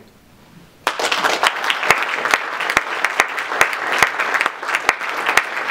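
Audience applauding, breaking out suddenly about a second in: a dense patter of many hands clapping, with single sharper claps standing out.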